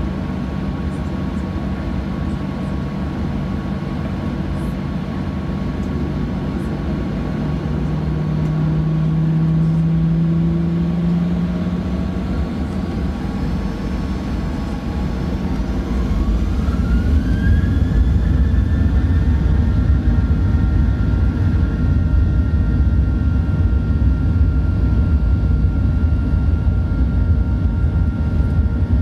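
Boeing 737-900's CFM56 jet engines spooling up, heard from inside the cabin: a whine rises in pitch a little under halfway through, then holds steady over a louder low rumble, as for the takeoff roll.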